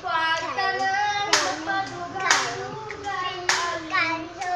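A small child singing a tune in a high voice, with a sharp clap-like beat about once a second.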